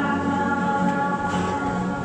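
A group of voices singing a hymn together, slow held notes.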